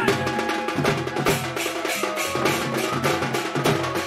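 Sambalpuri dhol, a double-headed barrel drum, played fast with a stick and hand in quick, even strokes, over a few steady held notes from an accompanying instrument.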